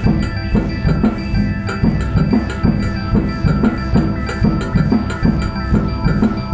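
Live synthesizer and percussion music: held synth tones over a steady, fast percussion beat with a deep thump and crisp high strokes.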